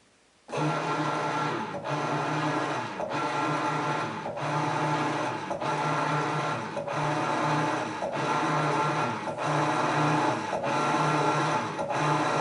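Whirlpool vertical modular washer transmission and motor running in agitate mode: a steady mechanical whir that switches on about half a second in, with a regular dip and surge about every second and a quarter.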